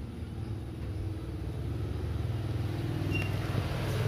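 A motor vehicle's engine running nearby, a steady low hum that grows gradually louder as it approaches.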